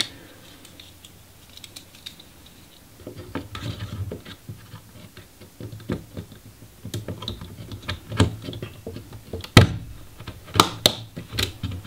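RAM sticks being pressed into motherboard memory slots: scattered light plastic clicks and handling sounds, with a few sharper clicks in the last few seconds as the slot latches seat.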